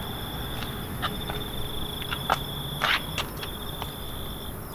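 A cricket trilling on one steady high pitch, breaking off for a moment a few times, with a few sharp scuffs of footsteps on debris.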